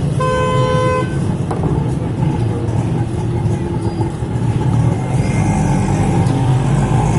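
Busy street traffic: a steady rumble of engines, with a vehicle horn sounding once for about a second just after the start.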